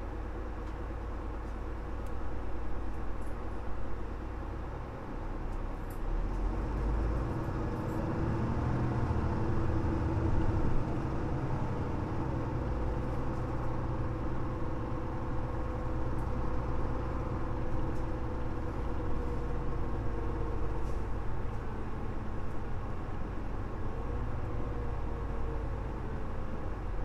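Mitsubishi Fuso LKG-MP37FM diesel city bus running, heard from inside the passenger cabin: a steady low engine rumble whose pitch slowly rises and falls as the bus drives on.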